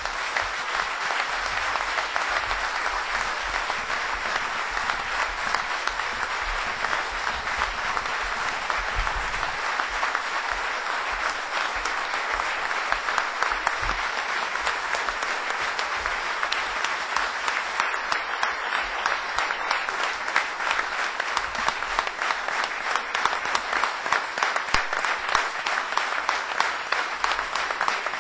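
Large audience in a conference hall applauding at length, a dense unbroken ovation of many hands clapping.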